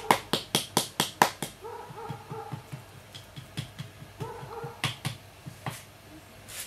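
A wooden paddle tapping against the clay wall of a large thrown jug. A quick run of sharp taps, about five a second, comes in the first second and a half, then single taps come now and then.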